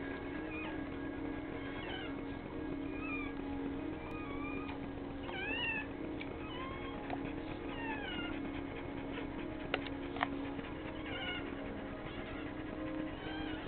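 Newborn Nova Scotia duck tolling retriever puppy squeaking and mewling: short, high, wavering cries that come every second or so, over a steady low hum. Two sharp clicks about ten seconds in.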